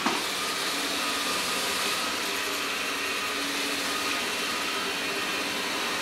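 LG Hom-Bot robot vacuum running: its suction fan and brushes give a steady, even whir with a faint constant whine.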